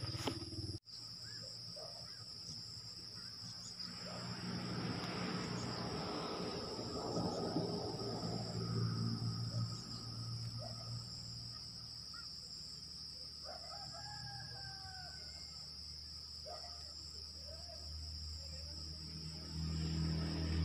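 Steady high-pitched insect drone, with a rooster crowing once about two-thirds of the way through and a few shorter calls after it. A rushing noise swells in the first half.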